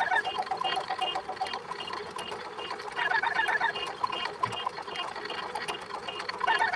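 A rapid run of rhythmic chirps and clicks at several pitches, in a pattern that repeats about every three and a half seconds.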